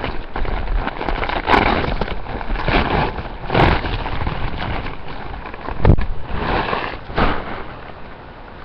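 Clothing fabric rustling and rubbing as it is handled right at the microphone, with several knocks against the microphone, the heaviest about six seconds in. It dies down near the end.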